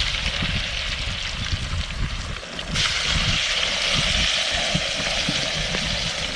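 Pieces of catfish frying in very hot oil, a steady loud sizzle that grows brighter about three seconds in, over a low uneven rumble.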